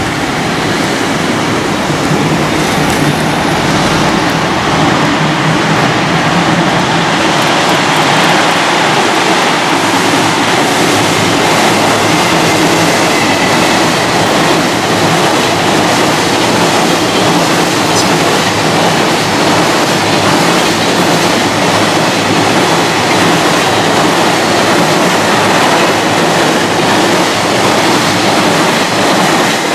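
Long electric-hauled container freight train running past on a steel girder bridge: a loud, steady rolling noise of many wagon wheels on the rails, swelling slightly in the first couple of seconds as the train comes level and then holding steady as the wagons stream by.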